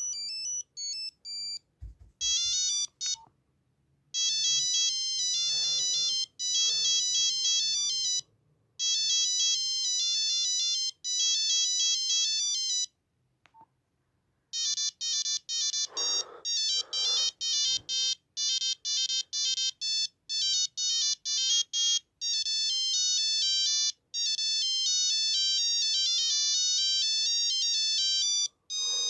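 Nokia 8265i mobile phone playing its built-in monophonic ringtones one after another: quick, high-pitched beeping melodies, with short pauses where one tune ends and the next begins.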